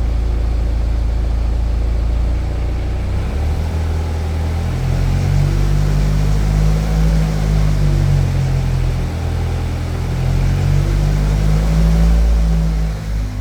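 BMW E92 320d's N47 four-cylinder diesel engine running steady, then its speed rising and falling repeatedly from about three seconds in, with the rattle it makes on acceleration.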